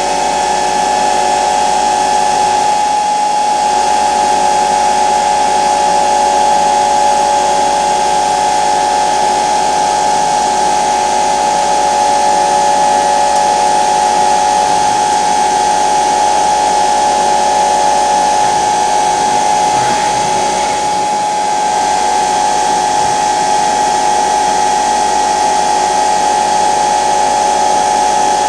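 Hardinge Talent 8/52 CNC lathe running, giving a loud, steady high-pitched whine of several close tones over a hiss.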